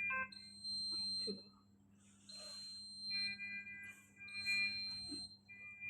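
Electronic beeping tones: a single high steady tone and a lower cluster of several tones sounding together take turns, each held about a second with short gaps between.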